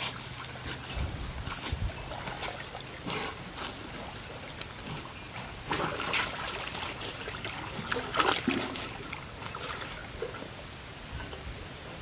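Water buffaloes moving through a muddy pond: irregular splashing and trickling of water, loudest about halfway through and again about two-thirds of the way through.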